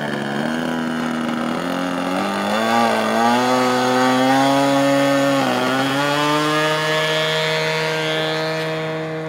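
A radio-controlled model floatplane's engine runs loudly as the plane speeds across the water on its takeoff run. Its pitch climbs in steps, dips briefly about five seconds in, then holds steady and fades a little as the plane moves away.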